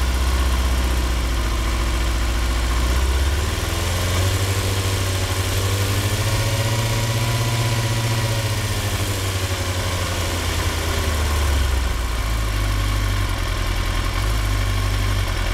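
2003 Yamaha R6's inline-four engine, through a Yoshimura exhaust, idling roughly, with the engine speed climbing about three and a half seconds in and settling back down near twelve seconds. The lumpy, V-twin-like idle with wandering rpm is a misfire that the owner traced to faulty ignition coils.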